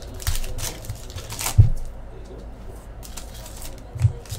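Hockey card packs and cards handled on a table: scattered rustles and clicks, with a dull knock about one and a half seconds in and a smaller one near the end.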